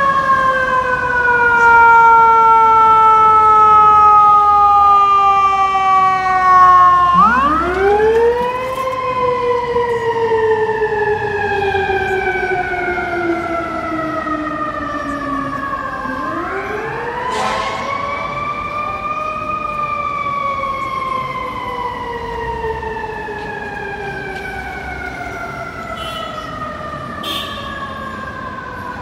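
Fire-engine siren on a 2010 Seagrave Marauder II pumper, sliding slowly down in pitch, winding up sharply about seven seconds in, then sliding slowly down again. It winds up once more around sixteen seconds in and falls off slowly, growing fainter toward the end.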